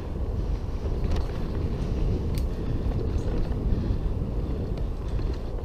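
Mountain bike riding fast down a dirt singletrack, heard from a helmet camera: a steady rumble of wind on the microphone and tyres on dirt, with a few sharp clicks as the bike rattles over bumps.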